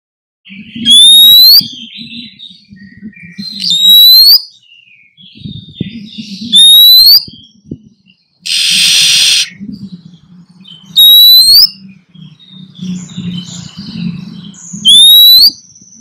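Oriental magpie-robin calling: a loud rising whistle repeated five times, about every three to four seconds, with softer chattering notes between and one harsh, buzzy rasp near the middle, over a low hum. This is the courtship calling of a female in breeding condition drawing a male.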